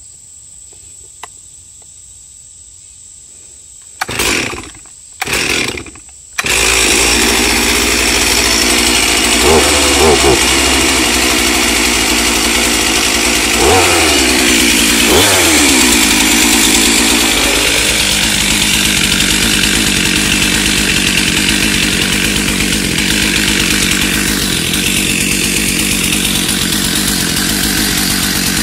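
Chainsaw pull-started, with two short bursts about four and five seconds in before it catches about six seconds in. It revs up and down a few times, then runs steadily under load, ripping lengthwise through a log in a Granberg Alaskan G777 chainsaw mill, its regular chain filed at a shallower angle for ripping.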